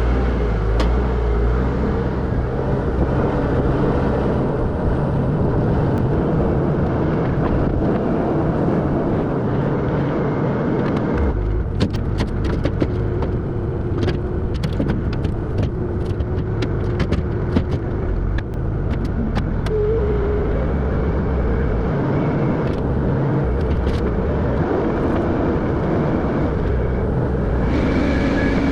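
A vehicle engine running steadily, with a run of sharp clicks and knocks about halfway through.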